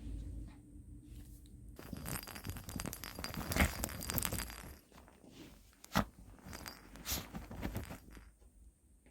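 A dog scrabbling and chewing at a toy: a dense crunching, scratching rustle for about three seconds, a sharp tap about six seconds in, then a few shorter rustles.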